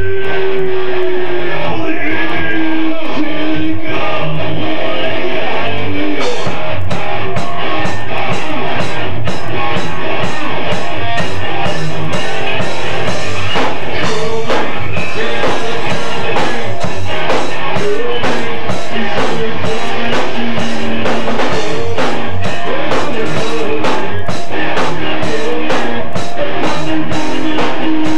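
Loud rock band rehearsal: electric guitar with a drum kit. A held guitar note slides down at the start, and the drums come in with steady cymbal strikes about six seconds in.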